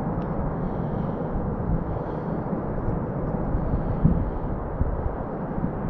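Wind buffeting the camera microphone: a steady low rumble with irregular gusty bumps, the loudest about four seconds in.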